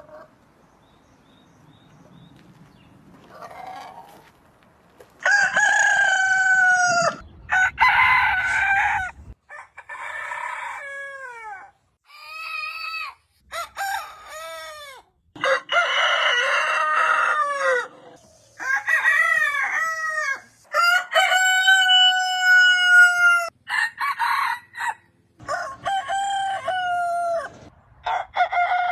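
Roosters crowing one after another, about ten crows of a second or two each, many ending in a long held note, several starting and stopping abruptly. The first few seconds are quiet before the crowing begins.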